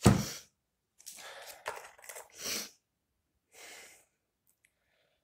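A short, loud puff-like burst right at the start, then a few soft rustles and handling noises as a coiled charging cable is pulled out of a phone box.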